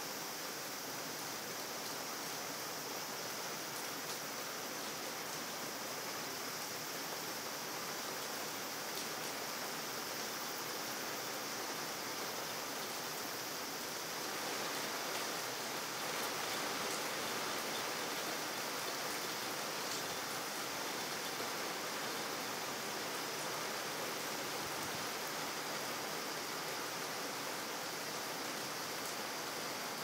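Steady rain falling, an even hiss with faint scattered drop ticks; it swells slightly about halfway through.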